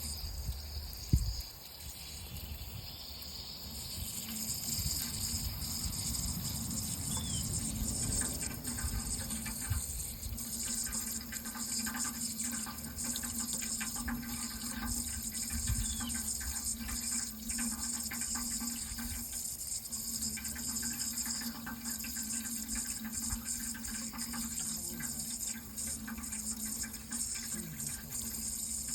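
Water running steadily. There is a brief knock about a second in, and the flow gets louder about four seconds in, then stays even.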